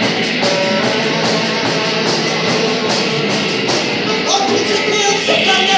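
Live rock band playing loudly: electric guitar, drums and saxophone.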